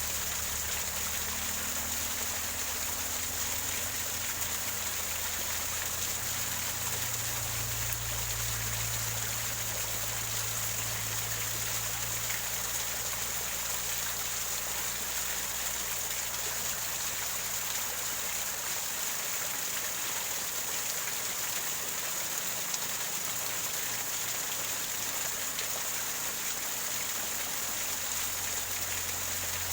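Small waterfall gurgling over rocks: a steady rush and trickle of water, strongest in the high hiss.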